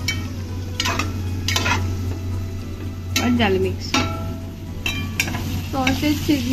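A metal spatula stirring food in a metal pan, with a run of sharp clinks and scrapes of metal on metal, over a steady low hum.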